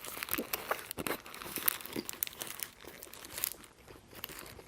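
Paper burger wrapper crinkling as the burger is handled, a quick run of crackles that thins out after about three seconds.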